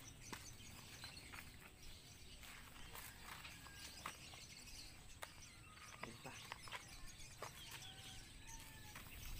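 Quiet outdoor ambience: faint short bird chirps and whistles, with scattered small clicks and ticks.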